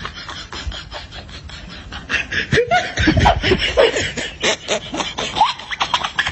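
People laughing and giggling, with short squeaky pitch glides and clicks, busier from about two seconds in.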